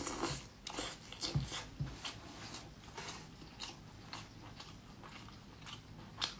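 Close-miked biting and chewing of soft crab claw meat pulled from the shell: scattered small wet clicks, with a few sharper ones in the first two seconds and again near the end.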